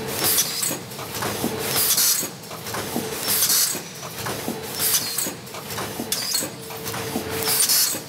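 Automatic pouch packing machine running, a short hiss of air about every second and a half as its pneumatic cylinders cycle, with light mechanical clicks in between.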